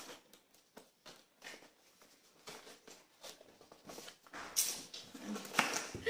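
Cardboard mailer box being handled and opened by hand: scattered light taps and rustles, then louder rustling and scraping of cardboard over the last second and a half as the flap is pulled open.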